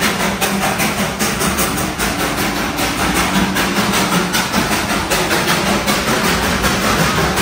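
Darjeeling Himalayan Railway narrow-gauge steam toy train running, heard from aboard: a steady, loud train noise with a rapid, even beat.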